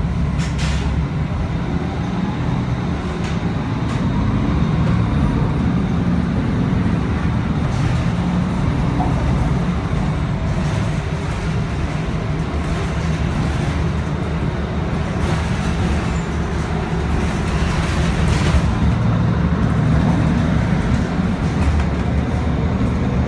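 Steady low engine and road rumble inside a moving city transit bus, with a few faint knocks and rattles from bumps along the way.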